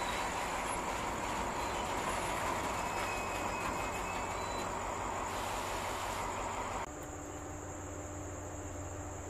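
Freight train of tank wagons rolling slowly past, a steady rumble and hiss of wheels on rail with faint thin squeals. About two-thirds of the way through it cuts suddenly to a quieter scene of steady cricket chirping over a low hum.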